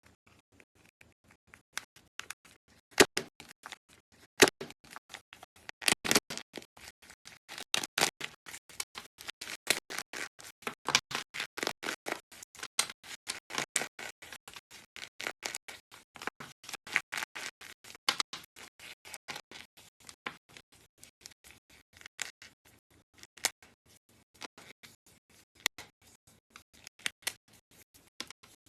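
Slime being pressed and stretched by hand, making rapid, irregular clicks and pops.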